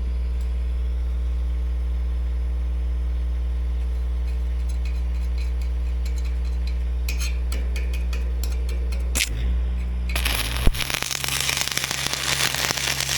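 An engine runs steadily. About ten seconds in, an arc welder strikes up with a dense, continuous crackle, and the engine's drone shifts in pitch as the welder takes load.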